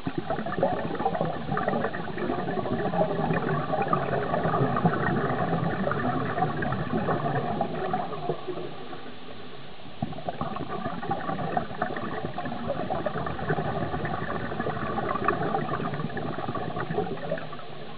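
Scuba regulator exhaust bubbles gurgling and crackling in two long exhalations, with a quieter pause of about a second and a half between them.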